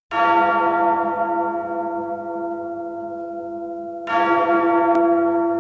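A church bell tolling twice, about four seconds apart, each stroke ringing on and slowly fading.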